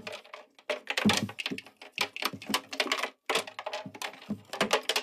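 A guitar pick rattling about inside a hollow acoustic guitar body as the guitar is shaken upside down to get it out through the sound hole: an irregular run of small clicks and rattles.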